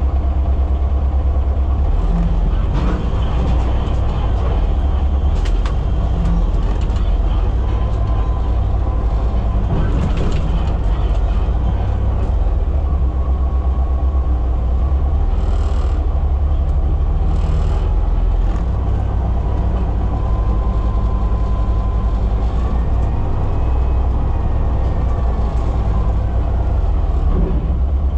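Front-load garbage truck's engine running with a steady low rumble, heard from inside the cab, with scattered clanks and two short hisses midway. Near the end the hydraulic lift arms raise a dumpster up in front of the windshield.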